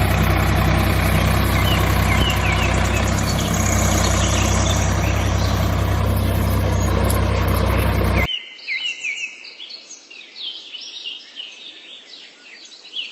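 Steady engine hum with birds chirping over it; about eight seconds in the hum cuts off abruptly, leaving birdsong alone.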